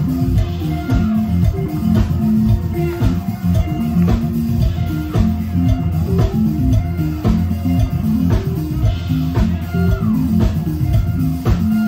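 Live band playing with electric guitar, bass guitar and drum kit, keeping a steady beat.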